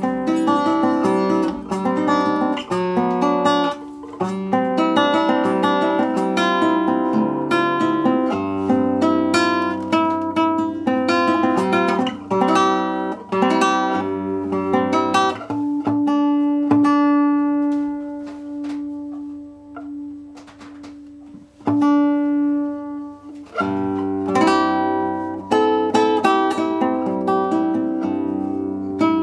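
A newly built seven-string acoustic guitar being played solo: a flowing run of plucked notes and chords. About halfway through, one note is held and left to ring and fade for several seconds before the playing picks up again.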